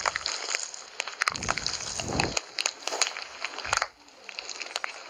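Slime being squeezed and worked by hand, making irregular crackling and popping clicks, with a denser squelchy stretch around the middle.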